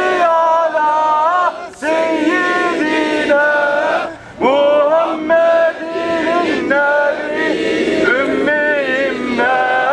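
A crowd of men chanting in unison, in long drawn-out, sung phrases with short breaks between them.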